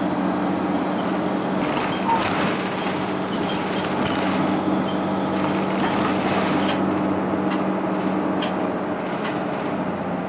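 Interior running sound of a Mitsubishi Fuso Aero Midi MK (KK-MK23HM) non-step route bus on the move: a steady diesel engine drone at an even pitch over road noise, with a few light clicks from the cabin.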